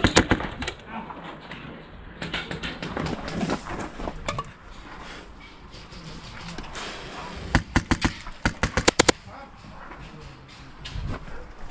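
Airsoft rifles firing short rapid bursts of sharp cracks: one burst right at the start, then two more about seven and a half and nine seconds in.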